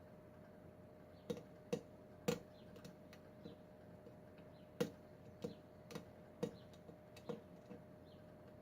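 Light, irregular clicks from a lock pick working the pins of a Kwikset pin-tumbler lock, about ten of them spaced unevenly.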